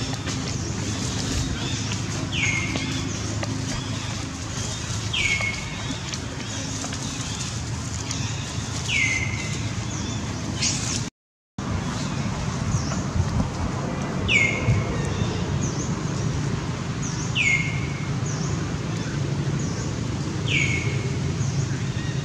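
A bird repeats a short whistle that slides downward, about every three seconds, with fainter high chirps between, over a steady low outdoor rumble. The sound cuts out briefly about halfway through.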